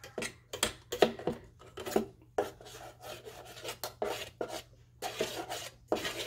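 Metal spoon scraping and stirring pancake batter in a stainless steel stand-mixer bowl: irregular rasping scrapes against the bowl's sides, with a few light knocks of metal on metal.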